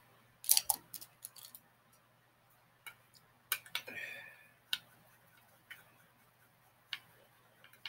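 Light, irregular clicks and taps of makeup brushes and small cosmetic items being handled while she searches for a brush.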